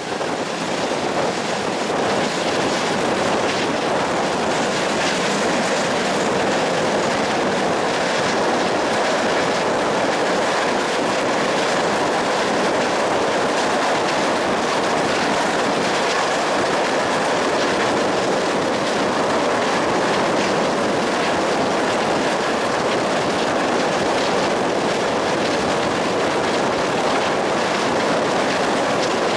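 A train running steadily along the track, with continuous, unchanging wheel and rail noise.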